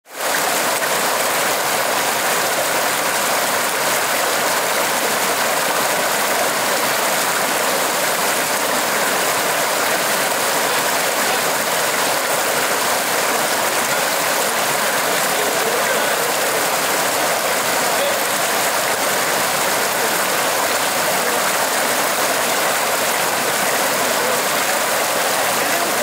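Shallow rocky mountain stream running over boulders in small white-water cascades: a steady, even rush of water, bright and hissy with little low rumble.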